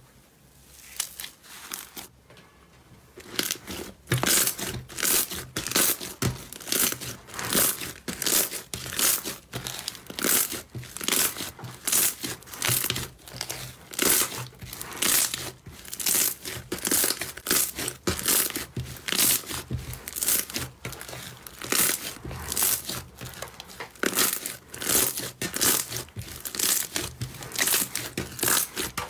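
Thick slime pressed and squeezed by hand, crackling and popping as trapped air bursts out. The crackles come in quick bursts about twice a second, starting about three seconds in.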